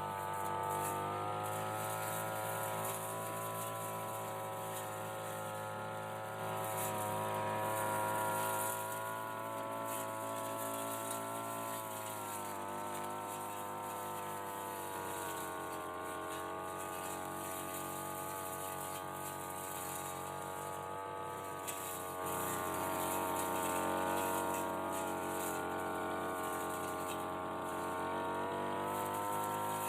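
Brush cutter engine running steadily at high speed, its pitch sagging and recovering as the propeller blade cuts into the hedge.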